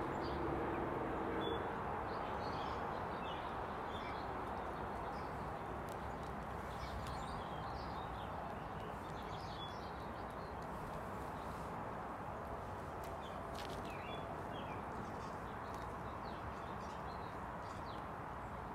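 Small birds chirping now and then over a steady outdoor background hiss, with a low steady tone in the first second or so.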